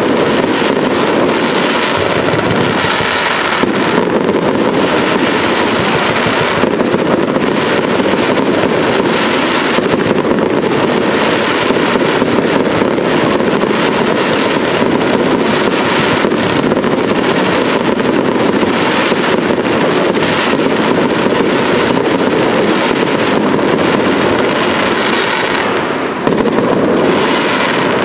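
Aerial fireworks display: shells bursting in quick succession under a dense, continuous crackle from the glittering stars.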